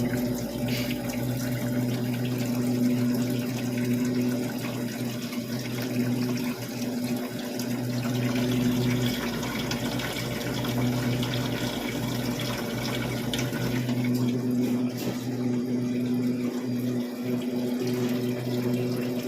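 Ice maker running: a steady machine hum with water running through it.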